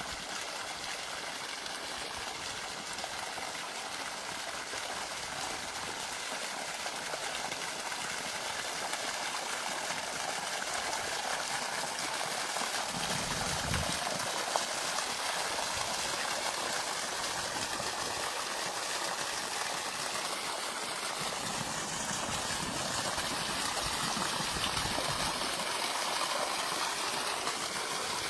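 Steady rushing of flowing water, with a few brief low rumbles partway through.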